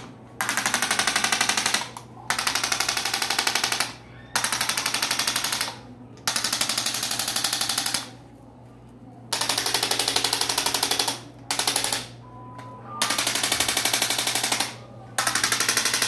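A corded handheld electric chiropractic adjusting instrument tapping rapidly against the patient's back in bursts of about one and a half to two seconds, separated by short pauses. Two short beeps sound a little past the middle.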